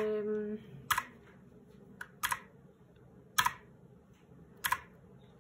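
Clicky blue-switch keys on a Rampage RMK-GX9 Pulsar mechanical keyboard, the Home key pressed four times about a second apart; two of the presses come as a quick double click.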